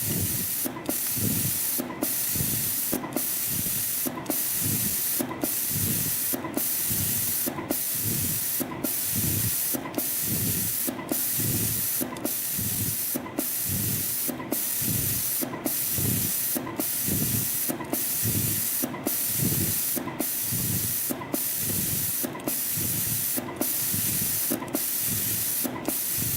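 CNC spring coiling machine running continuously, making tiny springs from 0.2 mm wire: a steady hiss that breaks off briefly about once a second, one break per cycle, over a quick low mechanical pulsing.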